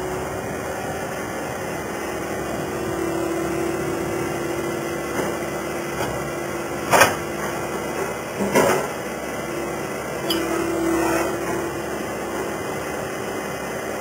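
Skid steer loader's engine running steadily, with three sharp metal clanks about seven, eight and a half and ten seconds in as the fork grapple takes hold of steel pipe in a pile.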